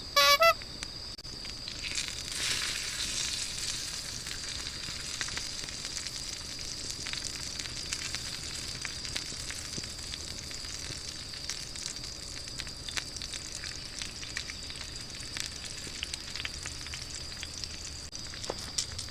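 Sausages sizzling as they cook over a wood fire: a steady sizzle full of small crackles, swelling a couple of seconds in. A short, loud, high squeak sounds at the very start.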